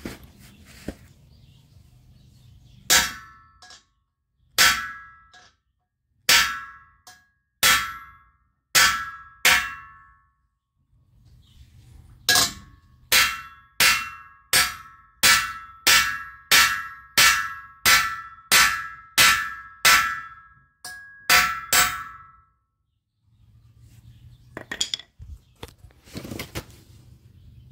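Hammer blows on the steel of a notched chassis subframe section, each strike ringing. First come a few slow, spaced blows, then after a pause a steady run of about two a second as the cut tab is bashed down into a ramp.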